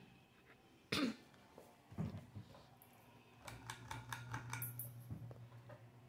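SMC Royal Flush ceiling fan running, with a steady low hum and a rapid ticking, about five ticks a second, for a second or two in the middle. A sudden sharp sound about a second in is the loudest thing, a short cough.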